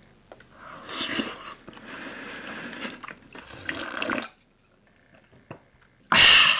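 Soup slurped and gulped straight from a bowl for a few seconds, then a short pause and a loud breathy exhale near the end.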